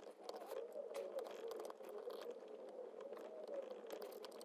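Faint small metal clicks and scratches of two precision screwdrivers working a tiny circlip off the fine focus gear shaft of a Mamiya RZ67 Pro II, over a faint wavering tone.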